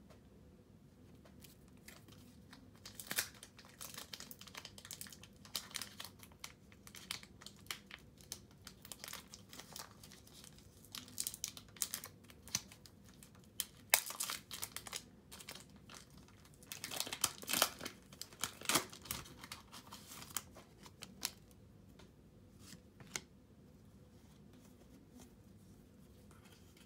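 Irregular crinkling and rustling with sharp clicks, coming in bursts that build to a dense cluster about two thirds of the way in and then die away.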